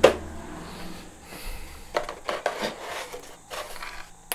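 Nylon zip ties being pulled tighter with pliers: a few sharp ratchet clicks, one at the start and one near the end, among short rubbing and scraping noises of handling.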